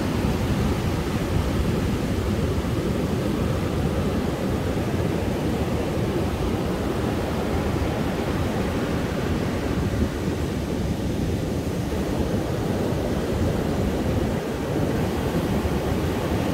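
Rough sea surf breaking on the shore: a steady, continuous roar of waves, mixed with wind on the microphone.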